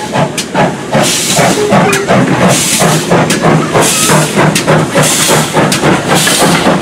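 GWR 5700 Class pannier tank steam locomotive pulling a train of coaches slowly past at close range: hissing steam and repeated exhaust beats, with knocks and clicks from the wheels over the rails.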